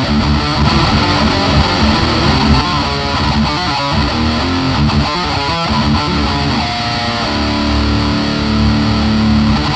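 Electric guitar played through a VOX combo amplifier with a distorted tone. It plays a busy riff, then holds one low note for a couple of seconds near the end.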